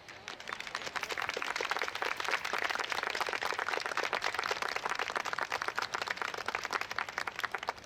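Audience applauding: dense clapping that builds up in the first second, holds steady, and tails off near the end.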